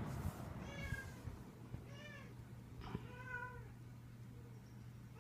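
A cat meowing softly three times, about a second apart, over a low steady hum.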